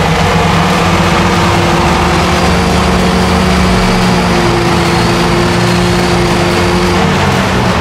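Off-road vehicle's engine running loud at steady, held revs, its pitch dipping slightly near the end.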